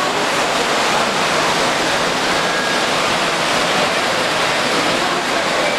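Steady, even rushing background noise of a busy exhibition hall, with no distinct events standing out.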